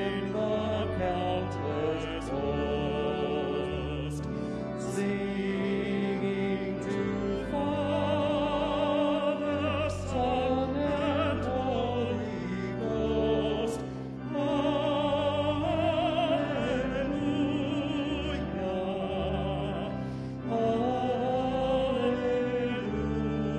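Voices singing with vibrato over sustained organ chords, a piece of sacred music.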